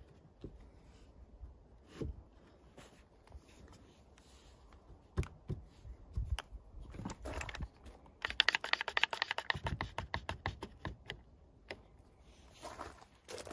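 Pieces of timber knocked and shifted against each other, then a run of rapid clicking lasting about three seconds from about eight seconds in, as an Irwin Quick-Grip one-handed bar clamp is slid on and ratcheted tight across the boards.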